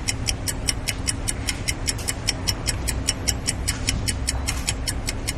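Ticking-clock sound effect: rapid, even ticks, about four or five a second, marking time passing.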